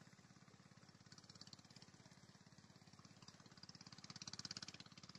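Near silence: only a faint, steady low drone with an even pulse, and a soft swell of higher hiss about four seconds in.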